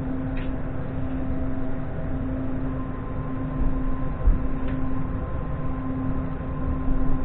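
Ivolga electric train heard from inside the carriage, moving slowly: a steady rumble of wheels and running gear with a steady electrical hum, joined about a third of the way in by a higher steady whine from the traction equipment. A few low thumps come around the middle.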